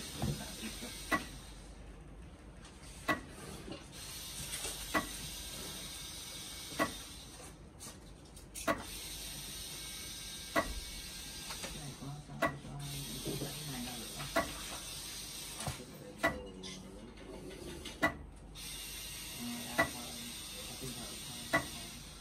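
Zebra ZT400-series thermal label printer running its RFID calibration: a sharp mechanical click about every two seconds as it steps the label stock forward to test tag reading, over a steady faint hiss.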